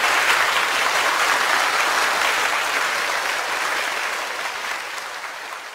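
Crowd applause, a dense steady clapping that fades out gradually over the last couple of seconds.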